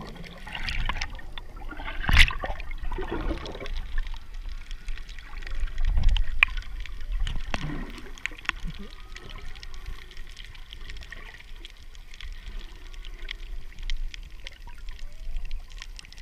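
Underwater sound on a Hawaiian reef: a steady crackle of snapping shrimp, like popcorn, with bubbling and rushing water in the first few seconds and one louder knock about two seconds in. Faint gliding calls of humpback whale song sound in the background.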